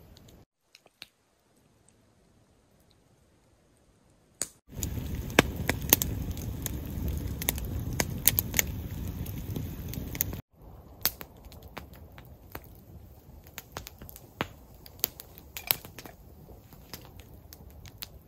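Campfire crackling with scattered sharp pops. The first few seconds are near silent; then a louder stretch of about six seconds follows, with a low rumble under dense pops, and it cuts off suddenly into quieter crackling.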